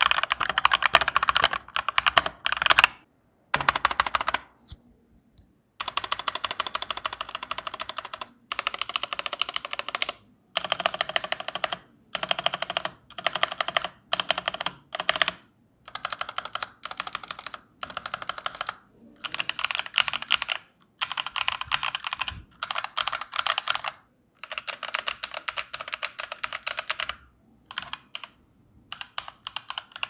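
Fast typing on a Leaven K780 budget mechanical keyboard with factory-lubed linear switches and stabilisers: dense runs of key clatter a few seconds long, broken by short pauses. It has a typical budget-keyboard sound.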